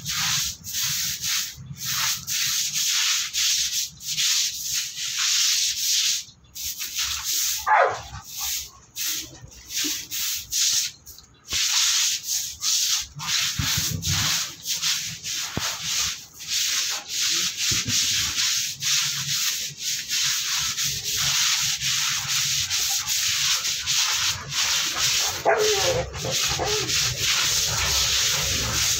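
Stiff hand scrub brush scouring a wet, soapy concrete floor in quick repeated strokes. Two brief whines break in, one about eight seconds in and one near the end.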